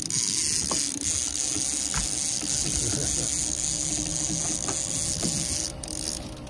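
Fishing reel being cranked to bring in a hooked kokanee, its gears and ratchet clicking and whirring over a steady background hiss.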